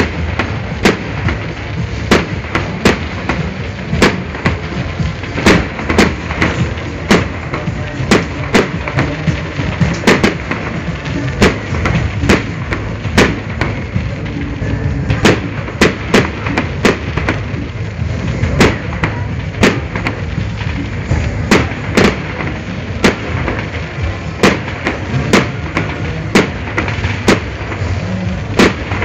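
Fireworks display: sharp bangs of bursting shells going off at uneven spacing, roughly two a second, over a continuous low rumble.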